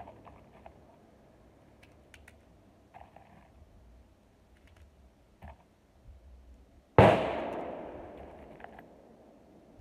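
Small metallic clicks of .22 LR cartridges being pressed one at a time into a Colt 1911 .22 magazine. About seven seconds in, one loud gunshot rings out and dies away with a long echo.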